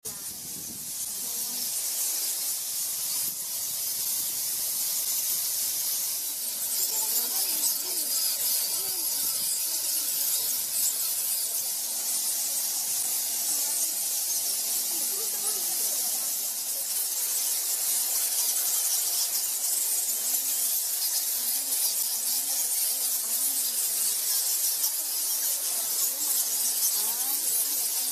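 A huge roosting colony of Geoffroy's rousette fruit bats squeaking and chattering all at once: a steady, dense wash of high-pitched squeaks, with scattered lower chirps that rise and fall.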